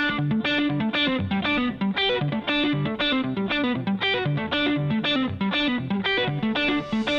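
Intro music: an electric guitar picking a quick, steadily repeating pattern of notes.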